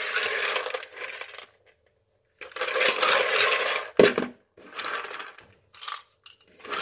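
Raw peanuts rattling and spilling as a plastic measuring cup is scooped through them in a plastic bowl and tipped into a wok, in two long stretches, with a sharp knock about four seconds in, then shorter rattles.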